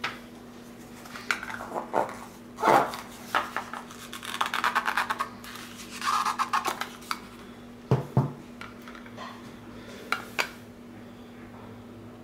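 Hands handling a proof coin's presentation box, paper certificate and plastic capsule: scattered light clicks and knocks, a quick run of ticks about four seconds in, and rustling as the box is opened and the capsuled coin taken out, over a faint steady hum.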